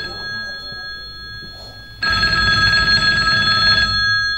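Telephone bell ringing: a ring stops just as the sound begins, and after a pause of about two seconds a second trilling ring sounds for about two seconds.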